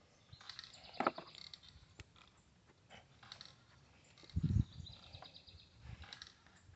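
Scattered light metallic clicks and knocks of a wrench and clamp being worked onto a car battery terminal, with one louder low thump about four and a half seconds in. Birds chirp faintly.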